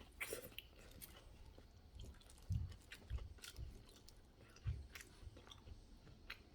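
A person chewing a cilantro burger close to the microphone: irregular soft crunches and wet clicks of the mouth, with a few heavier chews.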